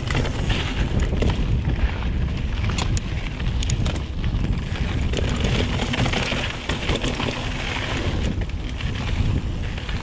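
Wind buffeting the microphone of a mountain bike's camera on a fast downhill run, over the tyres rolling on a dirt trail and the bike rattling over bumps, with a few sharp clicks about three seconds in.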